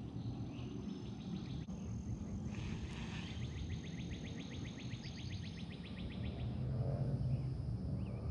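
Outdoor ambience with a low rumble of wind and handling on the microphone and a faint steady high-pitched whine. From about two and a half seconds in, a rapid trill of about eight chirps a second runs for some four seconds, typical of an insect or bird call.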